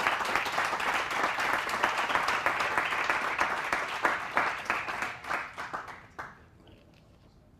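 Audience applauding, many hands clapping together, then dying away about six seconds in.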